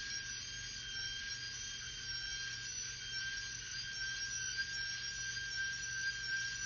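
Old Rockwell electric router running with a steady high whine, its pitch creeping up slightly.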